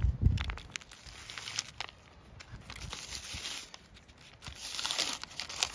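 Freezer paper being peeled off a cotton T-shirt by hand, a papery crackling and tearing in uneven spurts with short pauses.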